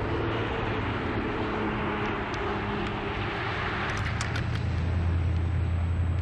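Steady rumbling hiss with a strong low hum from a worn early videotape's sound track, with a few crackles about four seconds in where the tape glitches.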